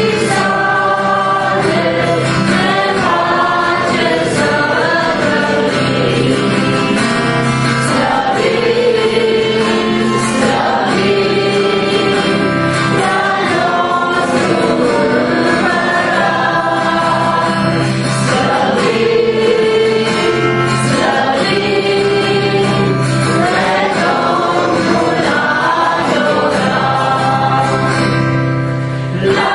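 Two women and a man singing a Christian song together to a strummed acoustic guitar.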